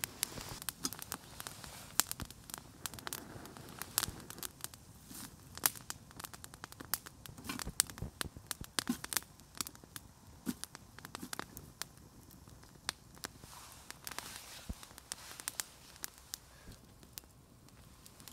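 A small campfire of sticks crackling, with many irregular sharp pops and snaps.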